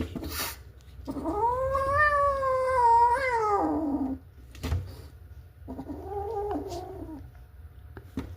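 A domestic cat calls twice. The first is a long, drawn-out call of about three seconds that rises and then slowly falls in pitch. About two seconds later comes a shorter, quieter and lower call.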